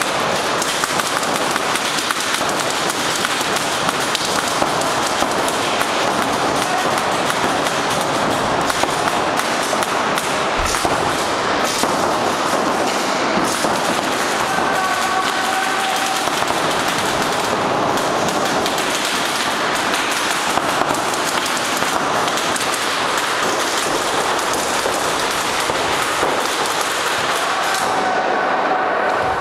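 Paintball (reball) markers firing rapid, continuous volleys of shots, the reports echoing in a sports hall.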